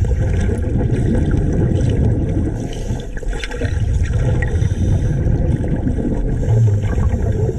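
Muffled, low rumbling and gurgling of water picked up by a camera submerged in a river.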